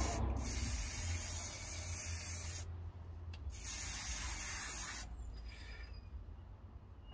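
Aerosol can of high-temperature paint spraying in two bursts, the first about two seconds long and the second about a second and a half, coating a new exhaust manifold gasket.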